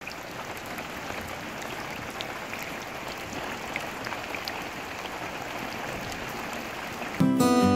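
Heavy rain falling into standing water on a paved yard: a steady hiss of drops with faint separate ticks. Strummed acoustic guitar music comes in near the end.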